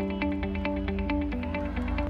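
Background music: held melodic notes over a steady, quick beat and a heavy bass line.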